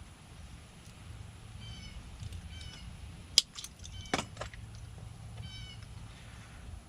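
Sharp metallic clicks and taps from lock parts being handled during a rekey, the loudest a little past halfway. Three short bursts of high-pitched animal calls sound in between.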